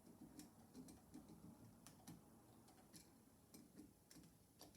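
Faint, irregular clicks and ticks of pliers gripping and bending a switch's hot wire, several light taps spread unevenly.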